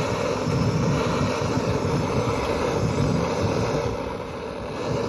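Gas blow torch burning steadily as it heats a steel rivet toward about 800 degrees; the sound dips briefly about four seconds in.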